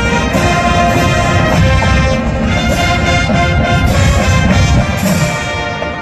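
College marching band playing: brass ensemble with trumpets and trombones over drum strikes, getting a little softer near the end.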